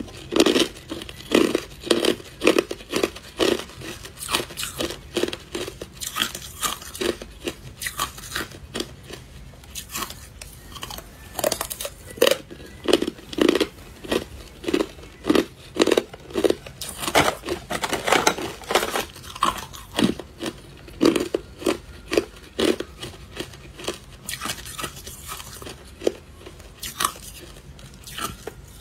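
Hard clear ice being bitten and chewed: a run of sharp, brittle crunches, about two a second.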